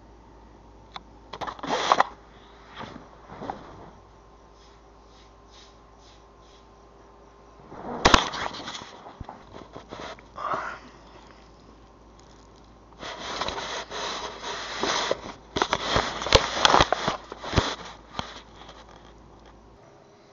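Bedding rustling and scraping close to the microphone in irregular bursts, with a long dense run near the end and a sharp knock about eight seconds in.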